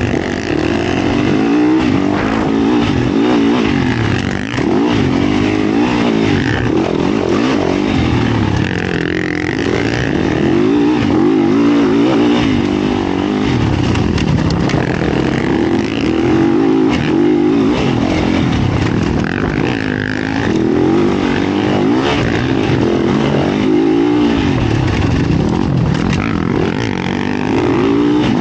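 Yamaha YZ450F single-cylinder four-stroke dirt bike engine under hard riding, its pitch rising and falling again and again as the throttle is worked and the bike shifts through the gears.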